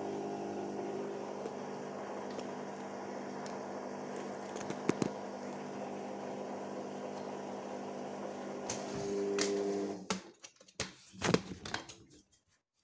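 Electrolux top-loading washing machine running with a steady motor hum. About ten seconds in the hum stops, and a few scattered knocks and clicks follow.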